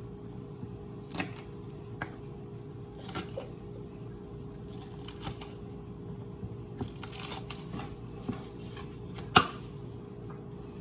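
Kitchen handling sounds during food preparation: scattered light clicks, taps and brief rustles, with one sharp click about nine seconds in, over a steady low hum.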